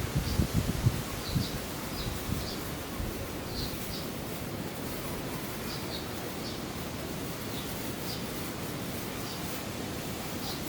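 Small birds chirping briefly and repeatedly over a steady outdoor hiss, with a few low rustling thumps in the first second.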